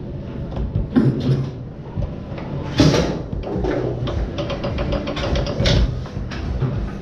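Foosball in play on a Tornado table: irregular hard knocks and clacks of the ball struck by the plastic men and hitting the table walls, with the rods rattling between shots. The sharpest knock comes about three seconds in, with another near six seconds.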